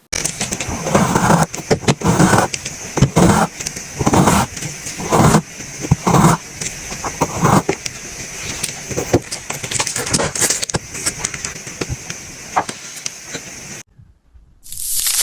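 Kinetic sand being worked, a dense crackling crunch with a heavier squish about once a second through the first half, then lighter crackling. Near the end it stops abruptly and a short hissing swell follows.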